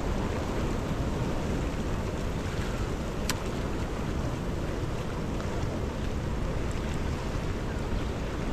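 Waves washing against the boulders of a rock breakwall, with wind rumbling on the microphone. A single sharp click about three seconds in.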